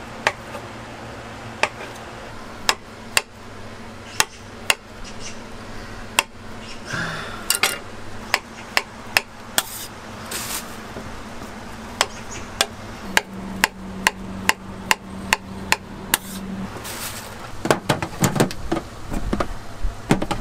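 Kitchen knife slicing a log of fior di latte mozzarella, each cut ending in a sharp knock of the blade on the hard counter, about one a second, over a steady low hum. Near the end the knocks come faster, with a clatter of plastic food-pan lids.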